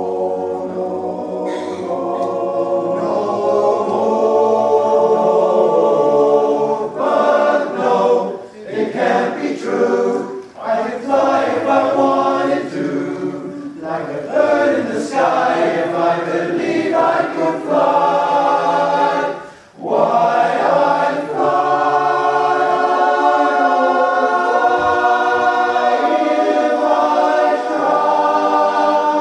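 Men's barbershop chorus singing a cappella in close harmony, holding sustained chords, with short breaks between phrases, the clearest about twenty seconds in.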